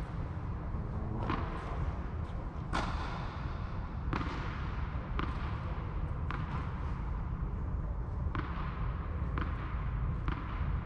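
Tennis rally: sharp pops of a tennis ball struck by rackets and bouncing on the court, about eight in all, one every second or so, echoing in a large hall, over a steady low rumble.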